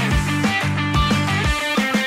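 Background music: rock-style backing track with guitar over a steady drum beat.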